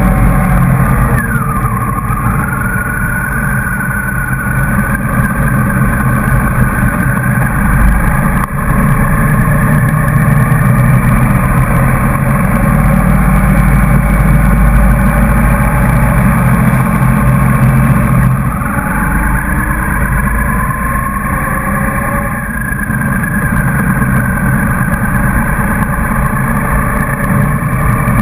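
Motorcycle engine running under way, heard from a bike-mounted camera with wind rush on the microphone. The engine pitch falls about a second in, then climbs slowly; it eases off and climbs again about two-thirds of the way through.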